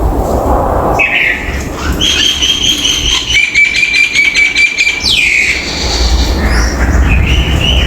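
Common myna calling: a run of whistled notes and squawks, with a fast rattling stretch in the middle over a steady low rumble.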